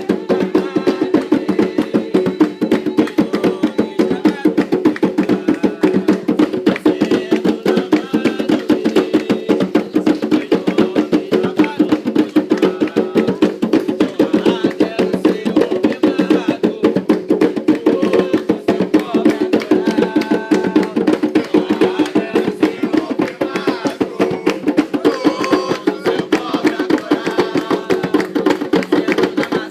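Fast, steady hand-drumming on atabaques, with voices faintly singing an Umbanda ponto over the drums.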